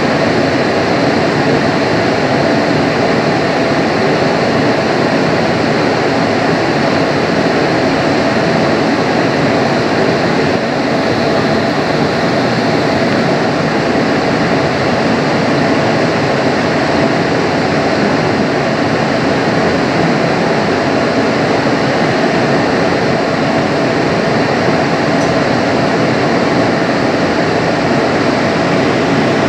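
Bombardier Innovia APM 100 people-mover car running steadily along its guideway, heard from inside the car: an even rumble and hiss of travel with a faint steady whine.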